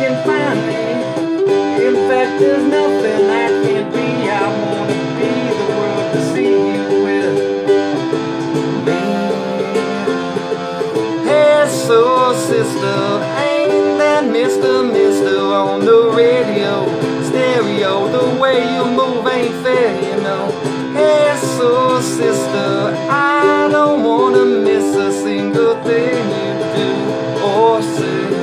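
A ukulele strummed in a steady rhythm, playing a repeating chord pattern.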